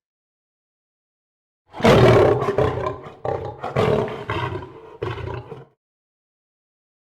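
Animal roar sound effect: one long, loud roar, followed by three or four shorter roars that grow fainter and stop after about four seconds.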